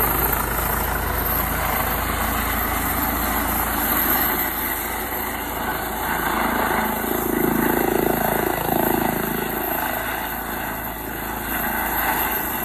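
Airbus H135 helicopter hovering and setting down: a steady, loud rush of rotor and turbine noise, with a pitched hum swelling up about halfway through and easing off again a few seconds later.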